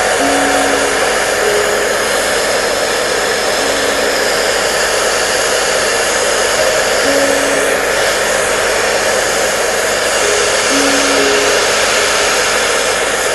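Hair dryer blowing steadily, an even unbroken rush of noise used as white noise to soothe a baby. A faint melody of slow single notes sounds underneath.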